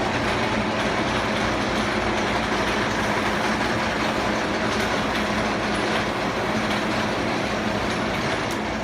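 Monarch 20-inch engine lathe running under power: a steady, loud mechanical running noise from the spindle and headstock gearing, which starts to die down near the end.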